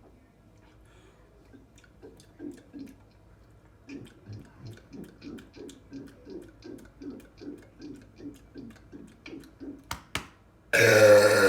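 A person gulping soda in quick, even swallows, about three a second. Then a short click, and near the end a loud, drawn-out burp begins.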